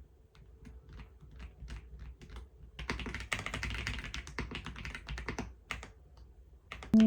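Typing on a computer keyboard: scattered key clicks, then a quicker run of keystrokes in the middle, slowing again toward the end.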